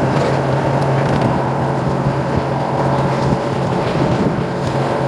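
Fishing boat's engine running with a steady low hum.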